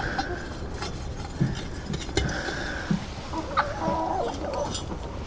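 Hens clucking in a chicken coop, with a short pitched call a little after the middle, over scattered light clicks and knocks.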